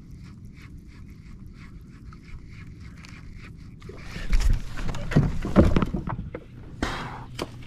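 A baitcasting reel being cranked, with faint small ticks over a low hum. About four seconds in, loud rustling and thumping takes over and stays the loudest sound until near the end.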